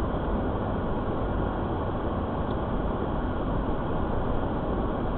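Steady road and engine noise from inside a moving car.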